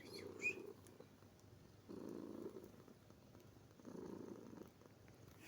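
A domestic cat purring in three swells about two seconds apart, one with each breath. A brief high squeak comes about half a second in.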